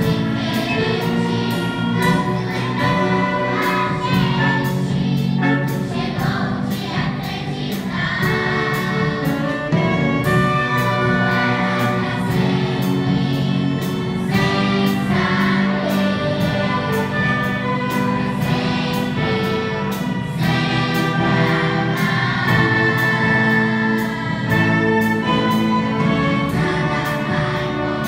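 Youth choir singing with a string orchestra accompanying, over a steady drum beat.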